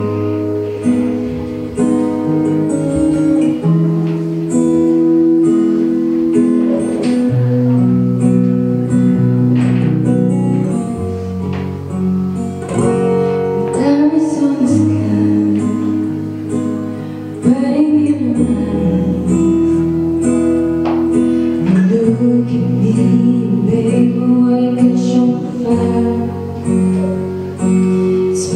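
A slow song: plucked acoustic guitar with held notes over a changing bass line, and a singing voice coming in at moments.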